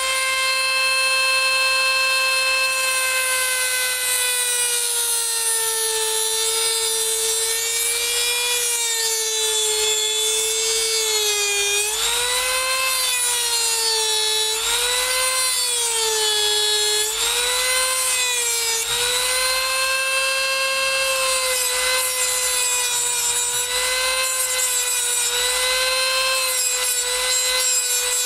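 Mini rotary tool (Dremel-type) with a cut-off disc whining at high speed as it cuts through the protruding end of a metal screw. Its pitch sags and wavers repeatedly as the disc bites in through the middle, and runs steadier near the end.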